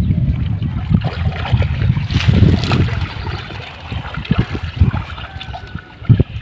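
Water sloshing and trickling as a person wades chest-deep through a water-lily pond, over a steady low rumble, with a louder surge about two seconds in.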